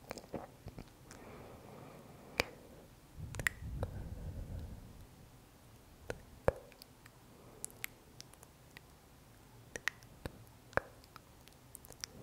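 Close-miked ASMR mouth sounds: a dozen or so sharp lip and tongue clicks scattered irregularly, with a soft low rustle swelling about three to five seconds in.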